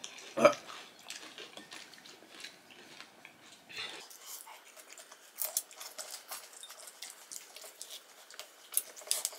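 Faint, scattered clicks and taps of metal spoons against ceramic bowls as crisp pani puri shells are cracked open and filled, with some chewing.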